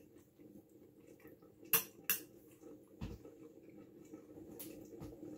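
Eating utensil clinking against a dish twice, close together, about two seconds in, with a couple of soft low thuds later.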